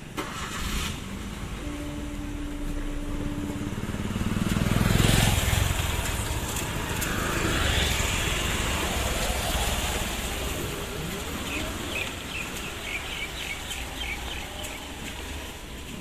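Road traffic moving over a railway level crossing: a motorcycle and a car pass close by, their engines and tyres loudest about five seconds in and again a few seconds later. A short steady beep sounds about two seconds in.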